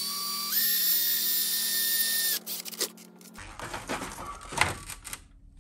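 Cordless drill running with a quarter-inch bit, drilling a hole through a plastic grille shell: a steady motor whine that steps up in pitch about half a second in and cuts off after a couple of seconds. A few light knocks and rustles follow.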